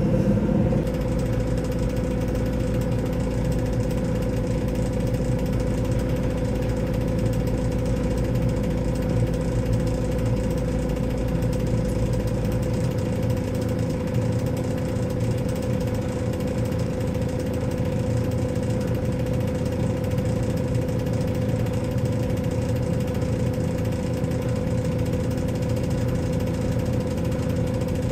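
JCB loader's diesel engine idling steadily, heard from inside its cab, a constant hum with a steady mid-pitched tone. The deepest part of the rumble drops away about halfway through.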